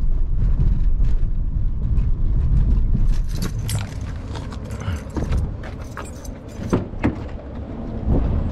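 A car drives slowly over rough pavement, a low rumble heard from inside the cabin, for about the first three seconds. It then goes quieter, broken by a run of sharp clicks and knocks as the car door is opened and someone climbs out.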